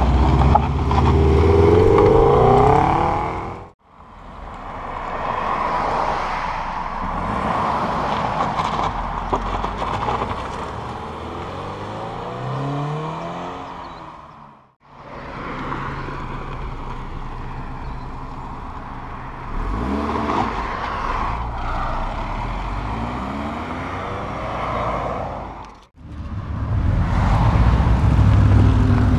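Subaru cars accelerating away one after another, their engines revving up through the gears with loud exhaust sound. There are four separate passes, each cut off suddenly. The loudest are the first, a blue Subaru Impreza WRX STI hatchback pulling out, and the last, a silver Subaru Forester.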